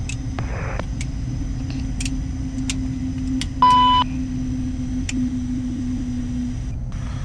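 Gulfstream jet cockpit with a steady low hum, broken once, a little past halfway, by a short loud beep: the alert that sounds while the aircraft is trimming.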